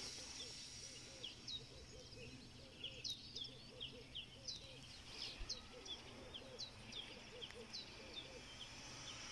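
Faint outdoor bird chorus: many short, high chirps scattered throughout, and a lower arched call repeated two or three times a second, over a faint steady low hum.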